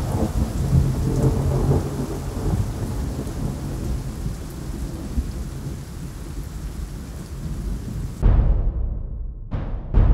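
Thunderstorm sound design with a low rumble and rain hiss. Near the end come heavy drum hits, each dying away, as the soundtrack's percussion begins.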